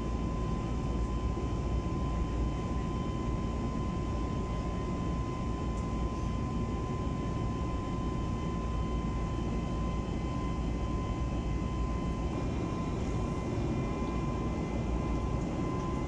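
Steady cabin noise of a jet airliner in flight, heard from a window seat: a low, even rush of engines and airflow with a thin steady whine over it.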